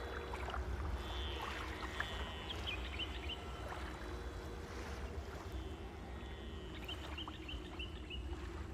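Water lapping against a boat over a low, steady rumble, with scattered small splashes. A bird chirps a quick run of short high notes about two and a half seconds in, and again near the end.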